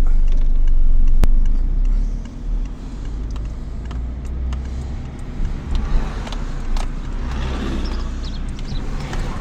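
Car heard from inside the cabin: a steady low engine and road rumble, louder for the first two seconds and then easing, with a few sharp clicks.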